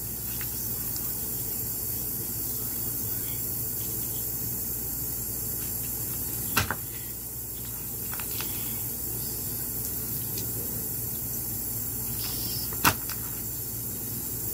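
Thick glitter slime being stretched and pulled by hand: quiet handling sounds over steady background noise, with two short sharp pops, about six and a half and thirteen seconds in.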